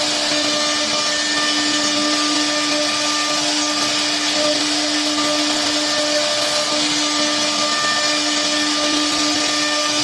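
CNC router spindle running steadily: a constant whine over an even hiss, with no change in pitch or level.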